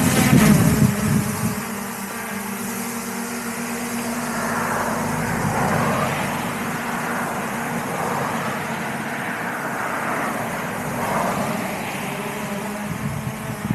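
Road traffic passing: several vehicles go by one after another, each swelling and fading, with the loudest pass in the first second. A steady low hum runs underneath.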